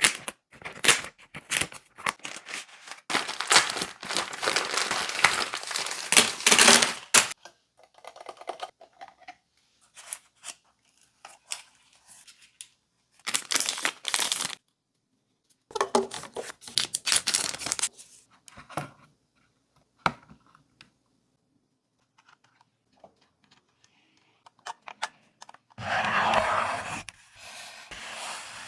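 Packaging of a DJI Air 3 drone being opened by hand: irregular bursts of rustling, crinkling and tearing, the longest stretch a few seconds in, then scattered shorter handling noises and one more long burst near the end.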